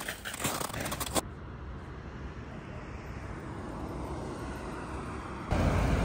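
Footsteps crunching in snow for about a second, then the steady low hum of road traffic, a car on the road growing slightly louder. Near the end a louder low rumble starts suddenly.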